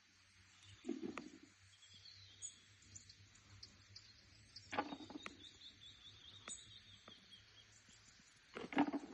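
Faint outdoor ambience with small birds chirping and trilling over and over. A few short muffled sounds come about a second in and about five seconds in, and a louder one comes near the end.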